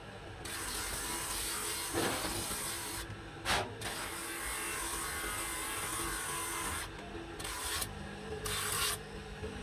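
Truck brake shoe lining ground against a spinning abrasive disc on a bench grinder: one long pass of scraping grinding noise starting about half a second in, then two short passes near the end, with the grinder motor humming steadily underneath.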